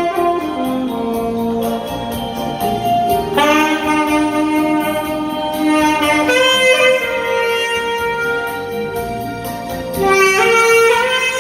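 Saxophone playing a slow melody in long held notes over a quieter accompaniment.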